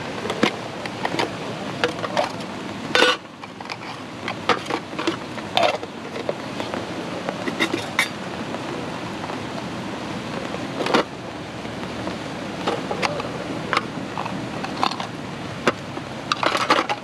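Camping gear being handled and set down on a small aluminium folding table: a string of light clinks and knocks, the sharpest about three seconds in and again near eleven seconds, with a cluster near the end, over a steady background hiss.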